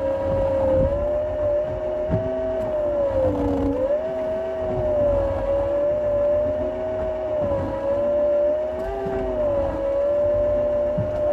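A motor engine running at a steady speed, its droning note dipping and rising slightly in pitch, over a low rumble.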